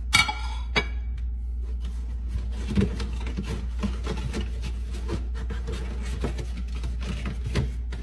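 A plate set down on a granite countertop with a clatter, a second knock just after, then a paper bag being opened and rustled, crinkling on and off.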